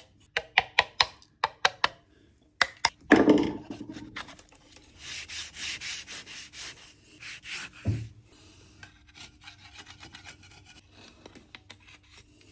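Filling knife scraping filler onto the wall around a socket box, applying the final coat. It starts with a quick run of short strokes, then a louder stroke, then slower, softer scraping with a knock about eight seconds in.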